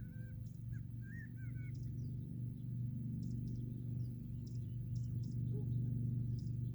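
Small birds giving a quick run of short chirps in the first two seconds, with fainter high ticking calls scattered through, over a steady low rumble.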